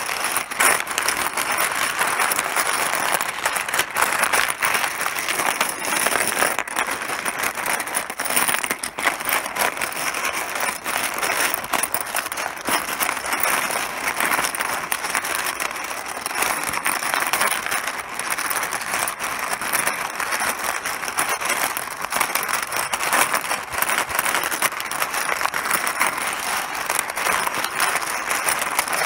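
Mahjong tiles clattering continuously, a dense stream of small hard clicks that never lets up.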